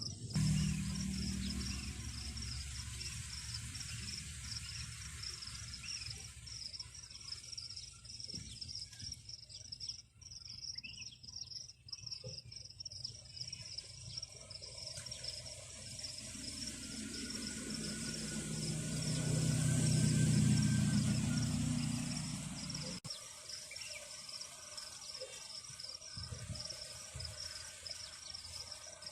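Insects chirring steadily in a fast, even pulse. A low hum grows louder about two-thirds of the way through, then stops suddenly.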